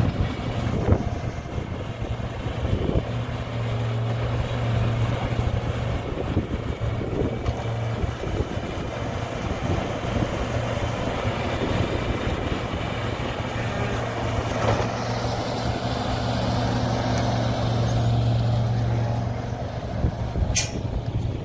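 Engine of a farm vehicle running steadily at an even speed, with a few sharp clicks near the end.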